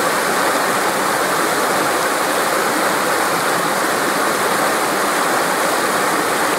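A shallow rocky creek rushing and splashing over stones in whitewater riffles, a steady, even rush of water.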